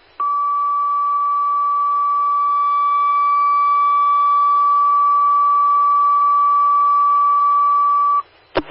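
Fire dispatch alert tone over scanner radio: a single steady tone held for about eight seconds over radio hiss. It cuts off near the end, followed by a short squelch click.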